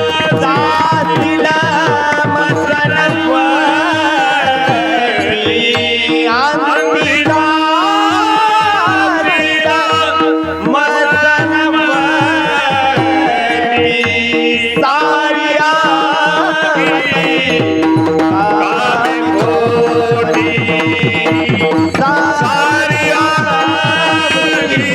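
Marathi kirtan singing: a voice sings a melodic chal with gliding ornaments, over a steady drone and hand-drum accompaniment.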